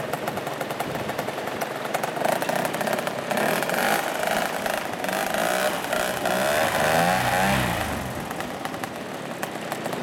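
Backpack paramotor's engine and propeller running. The revs rise and fall a couple of times about seven seconds in, then settle a little lower near the end.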